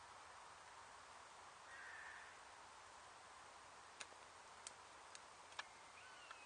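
Near silence, broken in the second half by a few faint, sharp crackles as dry wood curls and thin twigs catch fire from a match.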